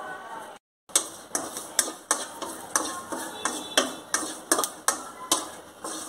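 Wooden spatula stirring curry leaves in an aluminium kadai, knocking and scraping against the metal pan in a steady run of sharp clicks, about two or three a second. The sound drops out completely for a moment just before the first second.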